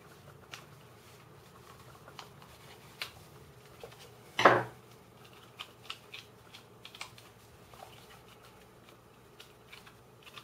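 Scattered small clicks and taps of 3D-printed plastic puzzle pieces being handled and pushed into place with a screwdriver, with one louder, longer noise about four and a half seconds in.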